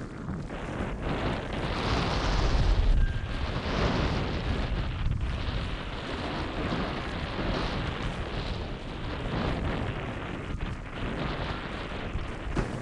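Wind buffeting the microphone over rushing water, a heavy rumbling roar that swells and eases every few seconds.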